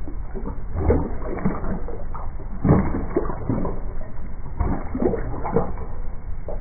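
A Chesapeake Bay Retriever lapping water from a plastic kiddie pool, its tongue slapping and splashing the surface in several short, irregular runs of laps.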